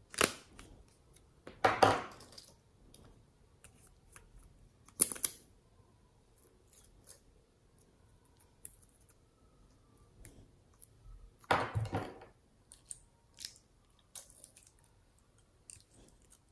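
Small plastic cosmetic containers being handled and uncapped by hand: caps pulled and twisted off lip-gloss tubes and a polish bottle, giving light plastic clicks and scrapes. A few louder clacks and rustles stand out, near the start, about two seconds in, about five seconds in and about twelve seconds in.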